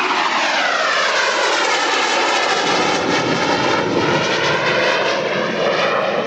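Jet aircraft flying past at an air display. Its loud engine note slides down in pitch over the first couple of seconds as it passes, then holds steadier.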